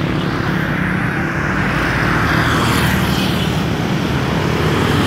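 Busy road traffic made up mostly of small motorcycles, their engines giving a steady drone, with a louder pass about halfway through as riders go by close.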